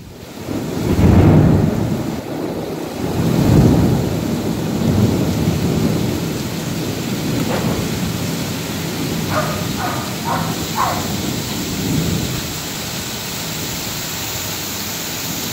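Heavy downpour of rain hissing steadily, with thunder rumbling low; it is loudest about a second in and again near four seconds, then dies away. Four short pitched calls come in quick succession about two-thirds of the way through.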